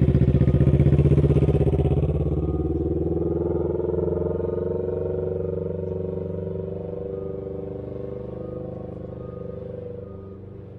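Can-Am Ryker three-wheeler's engine and aftermarket or stock exhaust running under throttle as it rides off, the sound fading steadily into the distance.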